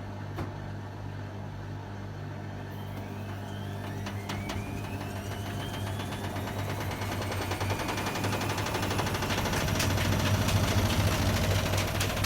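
Hotpoint WMA30 washing machine spinning up with an unbalanced load: the motor's whine rises steadily in pitch and the running grows louder over a low steady hum, with a few sharp knocks.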